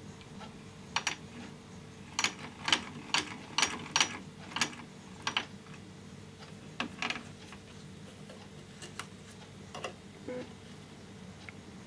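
Essex miniature chain-stitch sewing machine (c. 1947) worked by its hand crank, its mechanism giving a run of sharp clicks about two to three a second for a few seconds. Then come a few scattered clicks as it is handled.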